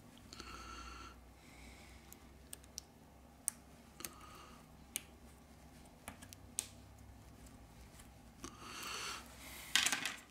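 Small, sharp clicks and taps as a plastic pry tool and fingertips press a flex-cable connector onto a smartphone's circuit board. There are a few short scratchy rustles of handling, the loudest just before the end.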